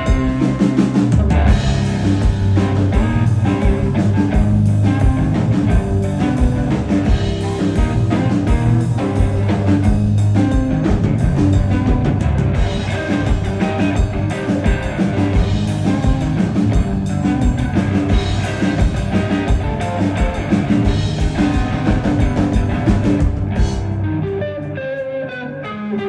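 Live rock band playing a psychedelic-rock jam: electric guitar over a drum kit. Near the end the low end drops away and the music thins briefly before the band comes back in.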